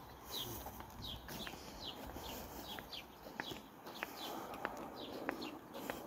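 Faint footsteps of people walking on a paved path, with a steady run of short, high chirps falling in pitch, about two a second.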